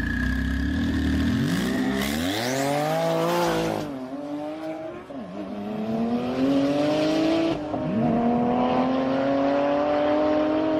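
Car engine accelerating hard through the gears: a low steady note rises sharply in pitch, drops at a gear change about four seconds in, climbs again, and shifts once more near eight seconds before rising steadily.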